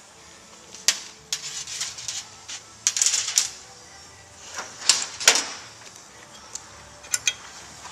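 Hand tools being handled on a workbench: scattered clinks, knocks and short clatters in several clusters, the loudest around the middle.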